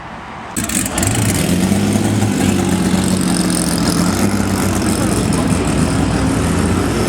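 A car engine cuts in suddenly about half a second in, then runs loudly and steadily at a low, even pitch.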